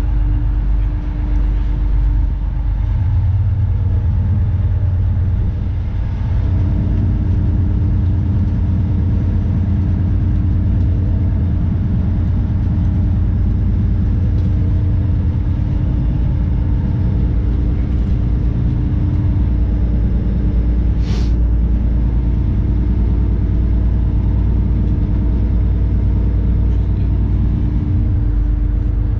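The fishing boat's engine running steadily under way, heard inside the wheelhouse as a loud low drone with a constant hum. There is one brief hiss a little past two-thirds of the way through.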